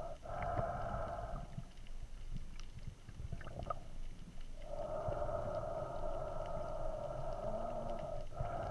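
Underwater sound picked up by a camera in its housing: a low rumble of moving water with scattered faint clicks, and a steady mid-pitched hum that drops out for about three seconds before returning.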